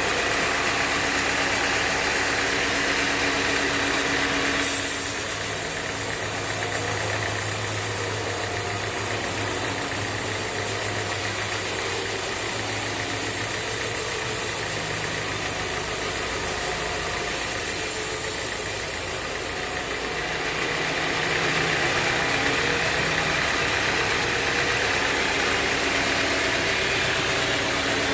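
Band sawmill machinery running steadily with a motor hum. Its sound changes from about five seconds in until about twenty seconds in, then returns.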